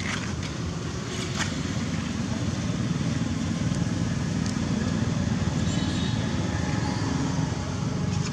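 A steady low outdoor rumble, with a few faint clicks.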